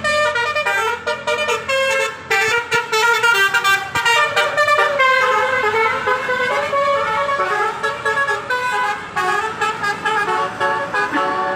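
Bus 'telolet' musical horn playing a fast melody of several horn tones, the notes changing pitch in quick steps.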